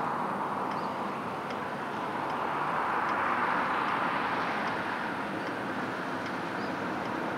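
Road traffic passing by the level crossing: a steady tyre-on-asphalt hiss that swells about three seconds in and eases off again, with faint high ticks at regular intervals over it.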